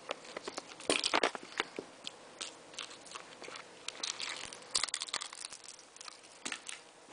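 A poodle puppy scrabbles and nips close to the microphone, making a quick irregular run of clicks, crinkles and rustles. The busiest flurries come about a second in and again around four to five seconds in.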